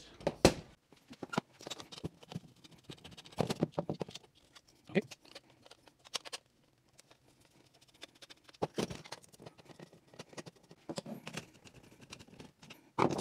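A screwdriver backing screws out of a tripod's head while the tripod is handled: scattered clicks, taps and knocks of metal and plastic parts, with quiet gaps between.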